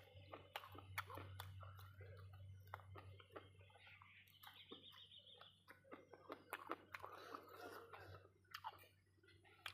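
Faint close-up chewing: a person eating, with scattered wet mouth clicks and smacks.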